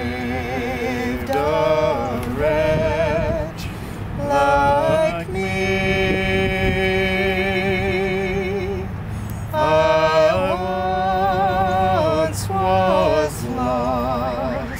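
A woman singing a slow melody with vibrato, with a man singing along, in phrases broken by short breaths. One note is held for about three seconds in the middle.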